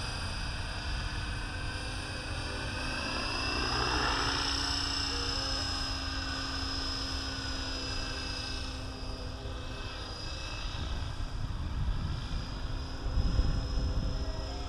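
Align T-Rex 550E electric RC helicopter in flight: the steady high whine of its motor and drivetrain with the rotor's whirr, growing louder about four seconds in.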